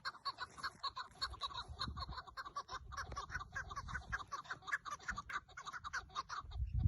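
Chukar partridge calling: a fast, even run of short clucking notes, about five a second. Low rumbling thumps come in near the end.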